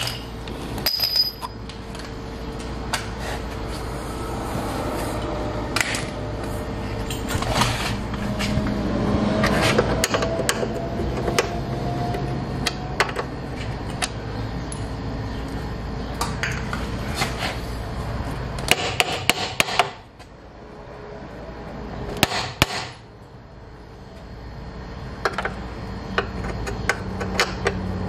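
Metal tool clinks and hammer taps on a car's lower control arm and subframe bolts, scattered irregularly. Under them runs a steady low shop hum that drops away about two-thirds of the way through.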